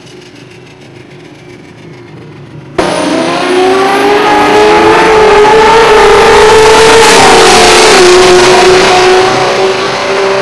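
Two Toyota drag cars, a Solara and a Celica, launching together about three seconds in and accelerating flat out down the strip. Their engines are suddenly very loud, then ease off slightly near the end as the cars draw away.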